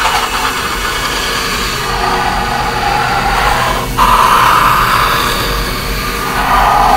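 Black marker rubbing across a sticky note close to the microphone: steady scratching that grows louder about four seconds in.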